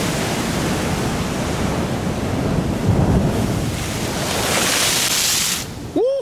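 Ocean surf breaking and washing over rocks, with wind buffeting the microphone. About four and a half seconds in, a wave surges up with a louder hissing rush of spray that reaches the camera and wets its front. The rush then cuts off suddenly, and a brief rising-and-falling tone is heard right at the end.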